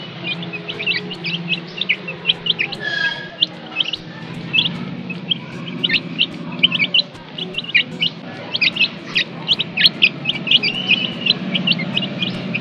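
A brood of young chicks peeping continuously as they feed, short high cheeps coming several a second, over a low steady hum.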